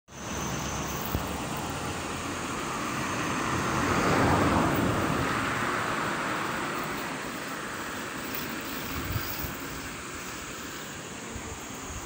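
A car passing on a nearby road: a rushing noise that swells to its loudest about four seconds in and then fades, over steady outdoor background noise. A faint high cicada drone sounds in the first second.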